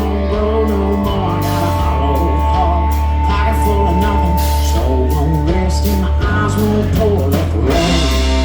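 Rock music with guitar, bass and drums, and a voice singing.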